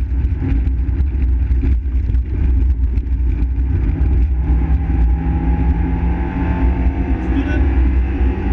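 Fiat Seicento rally car's engine running hard, heard from inside the cabin, with heavy road and suspension rumble from the rough stage surface. There are a few knocks from bumps in the first seconds, and the engine note climbs in the second half.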